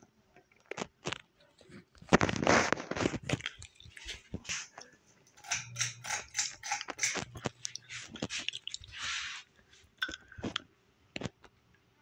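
Heritage Lancaster ceiling fan's pull-chain switch being worked, a run of sharp clicks amid crunchy rustling handling noise, loudest in a rustle about two seconds in. A faint low hum comes in for a few seconds in the middle.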